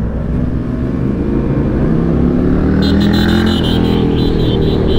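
Ducati Nightshift's air-cooled L-twin, fitted with an aftermarket Orion exhaust, accelerating past with its pitch rising. From about three seconds in, a horn sounds in a series of short beeps.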